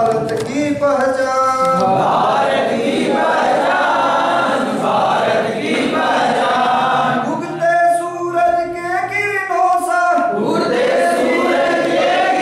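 A group of men singing together in unison, holding long notes.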